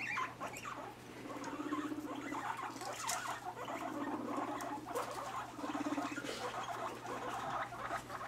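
Guinea pigs rumbling: three low, vibrating purr-like buzzes, each a little under a second, the rumble of a boar courting or asserting rank in a newly merged herd. Between them comes pattering and rustling of small feet in wood shavings.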